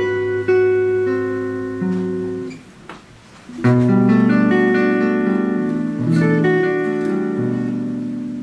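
Ukulele and guitar playing jazz chords together, with no singing. The chords ring and fade, break off briefly about three seconds in, then a new strummed chord rings out.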